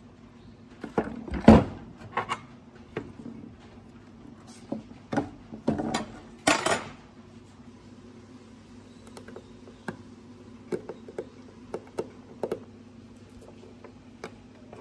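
Metal knocks and clatter as a rusty electric motor and its housing parts are handled, loudest about a second and a half in and again around five to seven seconds, then lighter small clicks as wires and a screwdriver are worked at a screw terminal block.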